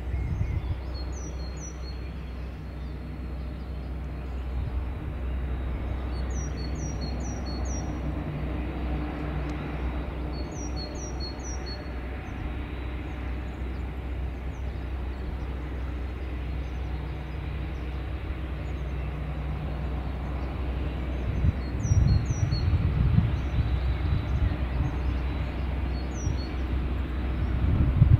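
ST44 (M62) diesel locomotive's two-stroke V12 engine working under load as it pulls a loaded timber train, a steady low drone that grows louder and rougher about two-thirds of the way through as the train comes closer. A small bird chirps in short quick runs of notes several times over it.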